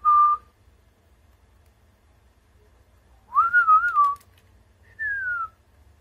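A person whistling three short phrases: a brief steady note just at the start, a wavering one about three seconds in, and a short falling glide near the end.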